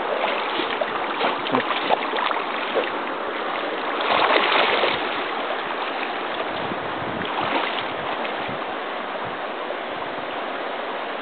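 River water rushing steadily, with scattered small splashes in the first few seconds and a louder burst of splashing about four seconds in.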